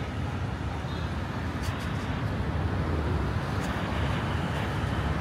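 Steady city street traffic noise, a low even rumble of passing vehicles, with a few faint clicks.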